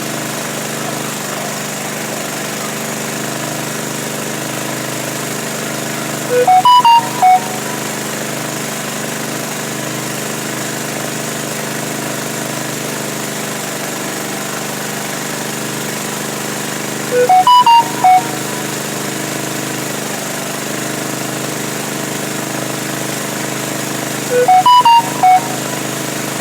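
A steady motor drone runs throughout. Three times, a short electronic tune of about five bright notes, about a second long, rises above it; the second and third come about eleven and seven seconds after the one before.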